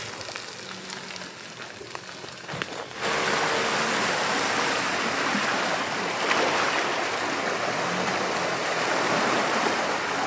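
Off-road vehicle's tyres churning through a muddy, water-filled rut: a steady rushing, sloshing noise of water and mud that comes in suddenly about three seconds in, after a quieter stretch with a faint engine hum.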